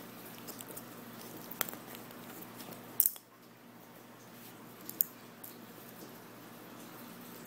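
Close handling noise of hands moving a rag doll and a plastic toy chick on a blanket: soft rustling with a few sharp clicks, the loudest a double click about three seconds in, over a faint steady hum.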